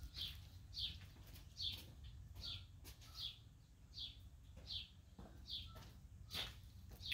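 A bird chirping over and over, one short falling chirp a little more often than once a second.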